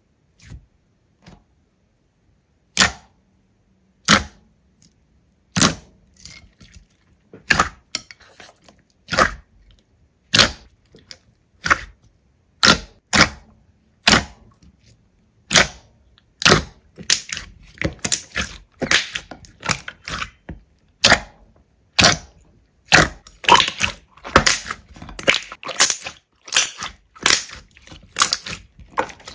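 Big slime being squeezed and pressed by hand, giving sharp wet pops and clicks. They come singly, a second or more apart, at first, then quicker and more crowded over the second half.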